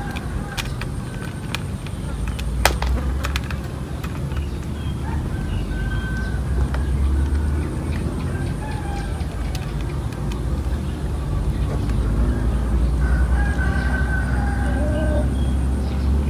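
A rooster crowing twice, once a few seconds in and again near the end, over a low steady rumble. A few sharp clicks sound in the first three seconds.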